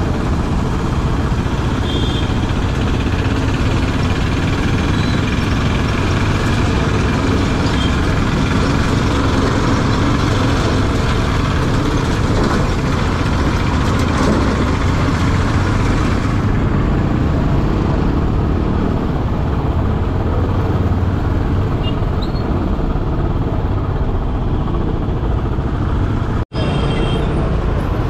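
Riding a Royal Enfield Bullet motorcycle through heavy city traffic: the single-cylinder engine runs under way amid steady wind and road noise, with a few short horn toots from the surrounding vehicles. The sound drops out abruptly for a moment near the end.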